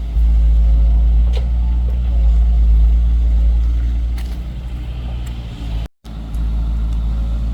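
Excavator engine running steadily as a deep, loud drone, with a few light clicks from the machine at work. It cuts out for a moment about six seconds in, then resumes.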